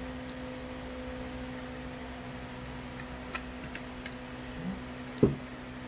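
A steady low electrical hum with a few faint ticks, then a single sharp thump about five seconds in, like a container being knocked or set down on the table.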